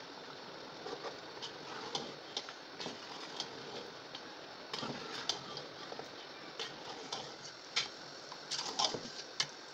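Metal ladle clinking and scraping against an aluminium pot as chunks of mutton and spices are stirred: irregular sharp clicks, bunched more densely near the end, over a steady hiss.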